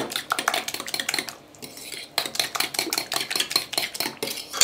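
Metal fork whisking a runny batter in a porcelain bowl: quick, even clinks of the fork against the bowl, about seven a second, with a brief pause a little before halfway.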